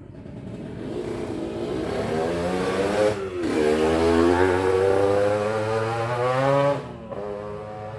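Motorcycle engine accelerating, its pitch climbing, dropping briefly about three seconds in as it shifts gear, climbing again, then falling away suddenly near the end as the throttle is closed.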